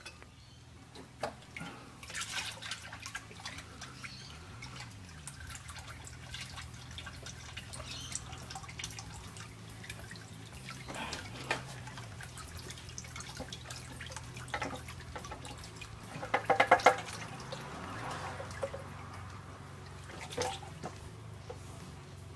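Automatic transmission fluid dripping and trickling into a plastic drain pan as the transmission oil pan is dropped off, with scattered clicks and knocks from handling the pan. About sixteen seconds in comes a brief loud rattle, the loudest sound.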